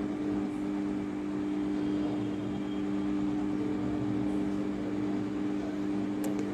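A steady low mechanical hum from a running motor, holding two low tones without change, with one faint click near the end.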